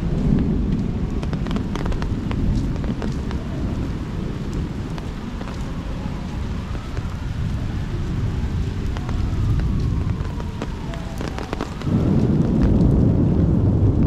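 Rain falling during a thunderstorm, with a low rumble of thunder under it that swells sharply about twelve seconds in. Scattered faint taps from raindrops.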